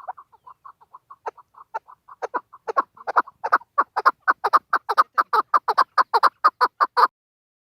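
Chukar partridge calling: a fast run of repeated clucking chuk notes, about four to five a second, that swells much louder a couple of seconds in and cuts off suddenly near the end.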